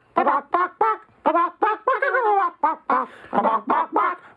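Chicken-like clucking in quick, short pitched notes, about four or five a second in an even rhythm, with one longer bending cluck about two seconds in.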